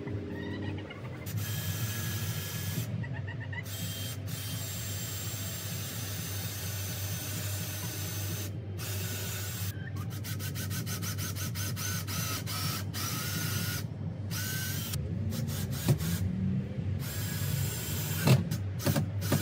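Power drill running in several bursts with short pauses in between, working on the wooden roof frame of a chicken coop.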